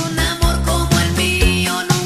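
Recorded pop song playing: bass and drums keep a steady beat, about two hits a second, under a long held note.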